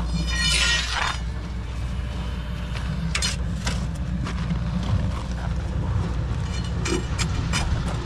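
Metal clinking: a clear metallic ring about half a second in, then scattered sharp clicks and knocks, over a steady low rumble.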